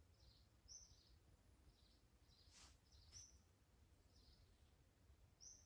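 Faint songbird calls: a short high phrase of a few quick notes, repeated about every two and a half seconds over a low background hush, with two faint clicks near the middle.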